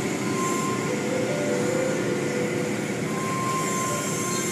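Automatic car wash running: a steady noise of water spray and spinning cloth brushes over a machinery hum, with a faint steady whine.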